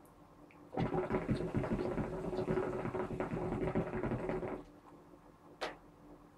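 Hookah water base bubbling hard as smoke is drawn through the hose: a long, loud, gurgling draw starting about a second in and stopping after about four seconds, followed by a short click.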